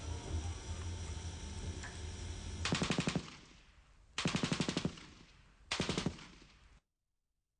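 Three short bursts of machine-gun fire, each about half a second of rapid, evenly spaced shots with an echo fading after it. Before the first burst, about two and a half seconds in, a low music drone plays. The sound cuts off suddenly near the end.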